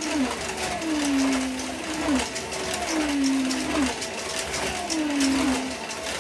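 1:32 scale slot car's small electric motor whining as the car laps the oval, its pitch falling, holding, then rising again about every two seconds, with light clicking over the top.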